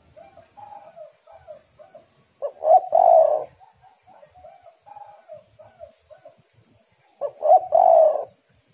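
Spotted dove cooing: two loud calls about five seconds apart, each a short note followed by a longer, fuller one, with a quieter run of short notes in between.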